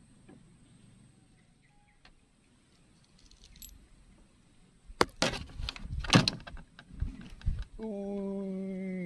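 Fishing gear handled in a wooden boat: a burst of clattering and jingling knocks, a few seconds long, starting about halfway through.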